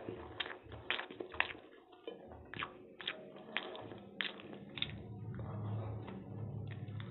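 Close-miked mouth sounds of a person eating chow mein noodles by hand: a run of sharp wet smacks and slurps as noodles are sucked in, then steadier chewing with a full mouth near the end.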